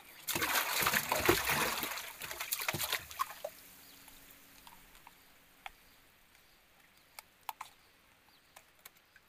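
Water splashing and sloshing for about three seconds, then dying away to a few faint scattered clicks.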